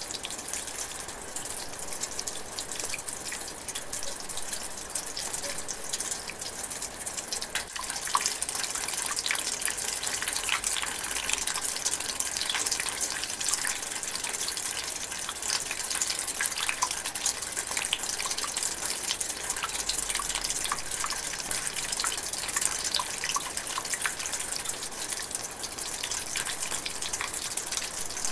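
Light rain drizzling in a forest: a steady hiss of falling rain with many separate drops ticking through it, growing a little heavier about a third of the way in.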